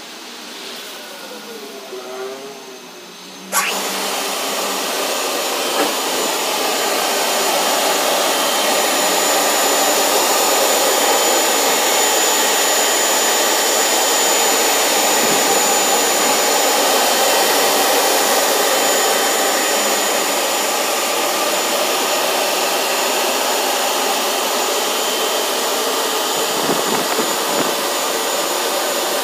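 Drying blowers of a Bolanke ZY-01B automatic rollover car wash switch on suddenly about three and a half seconds in, then run steadily with a loud rushing blast of air and a thin high whine. Before that, a quieter machine whirr with wavering tones.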